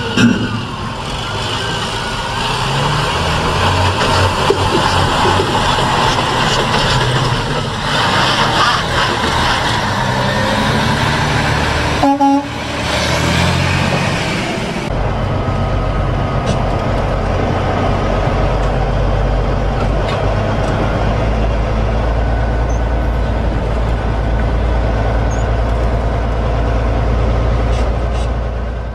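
Semi-truck engine and road noise. From about halfway on, a steady low diesel drone is heard from inside a truck cab.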